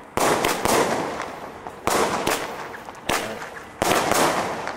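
Boxed ground firework battery firing four shots about a second apart. Each shot is a sharp bang followed by a hiss and crackle that fades over about a second.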